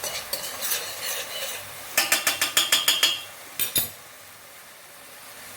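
Metal spoon stirring onions and garlic frying in oil in a stainless steel pot: scraping and clinking against the pot, with a quick run of sharp clinks about two seconds in and two knocks just before four seconds, then a soft even sizzle.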